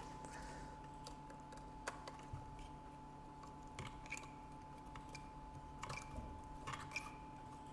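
Scattered light clicks and taps of plastic parts as a thumb cluster is fitted and screwed onto an ergonomic keyboard's case, over a faint steady hum.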